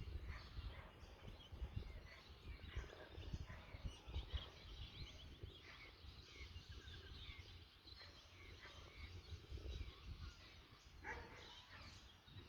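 Wind buffeting the microphone in uneven low gusts, with small birds chirping faintly throughout.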